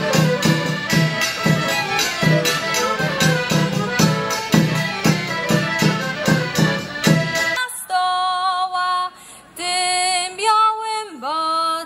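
Folk band of fiddle, accordion and bass drum with cymbal playing a lively tune over a steady drum beat. The music breaks off abruptly about seven and a half seconds in, and a woman sings alone, unaccompanied, in long held notes that slide between pitches.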